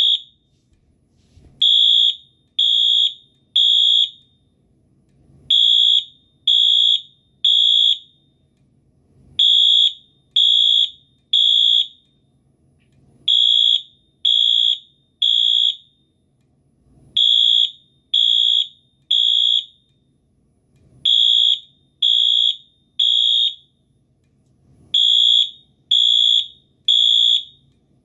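Wheelock MT fire alarm horn sounding its code 3 (temporal) horn pattern: loud, high-pitched blasts in groups of three, each group followed by a short pause, repeating about every four seconds.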